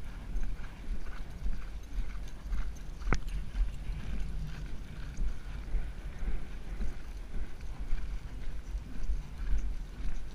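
Hoofbeats of a racehorse galloping on a dirt track, drumming in a steady rhythm, heard from the saddle with a constant low wind rumble on the microphone. A single sharp click sounds about three seconds in.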